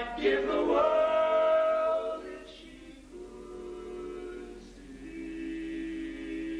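Barbershop quartet of four men singing a cappella in close harmony. A loud chord is held for the first two seconds, then the voices drop to a softer sustained chord.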